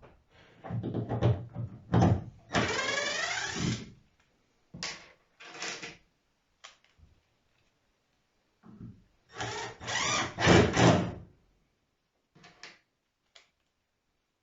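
Cordless drill/driver running in short bursts, backing out temporary deck screws and driving stainless steel screws into the floor strips, with the motor pitch shifting as it works.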